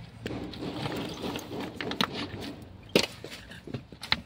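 Irregular knocks and scrapes of concrete and rubble as a tomb niche is broken open to widen its opening, with one sharp knock about three seconds in.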